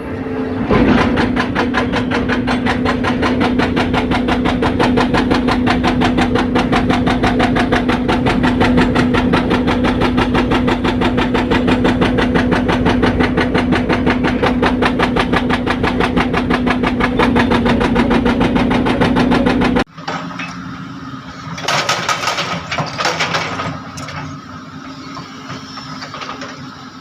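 Excavator-mounted hydraulic breaker hammering asphalt in a rapid, steady rhythm over the excavator's engine drone. The hammering cuts off suddenly about two-thirds of the way through, leaving the engine running more quietly with a few scraping knocks.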